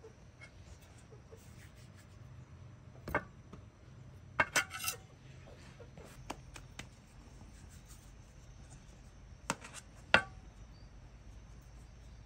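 Scattered clinks and knocks of kitchen utensils against dishes or pots, a handful of separate strikes, with a quick cluster of ringing clinks about four and a half seconds in.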